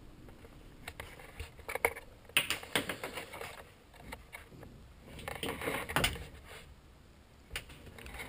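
Irregular clicks, knocks and rustling. Two busier stretches come about two seconds and five seconds in: handling and movement noise as a handheld camera is carried up to the velomobile and pointed into its cockpit.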